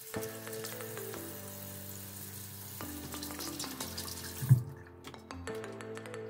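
Bathroom tap running into a sink, then turned off about five seconds in, followed by a few light clicks; background music plays underneath.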